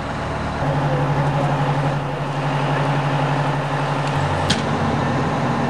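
Outdoor street ambience: a steady low mechanical hum under even background noise, with one short sharp click about four and a half seconds in.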